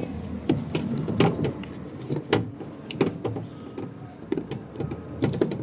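Irregular clicks and knocks of hard plastic and tools as a plastic cover is worked loose inside a car door.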